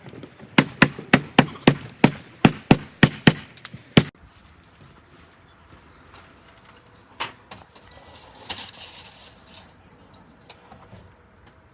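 Hammer blows on wooden roof boards, about a dozen quick, even strikes at roughly three a second, typical of nailing down roof sheathing or shingles. They stop abruptly about four seconds in, and after that come only a couple of faint knocks.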